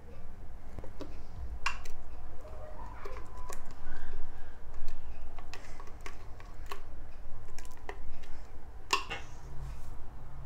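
Silicone spatula scraping and knocking against a stainless steel mixing bowl as banana paste is added to whipped cream: a handful of scattered light knocks and clicks, over a low steady hum.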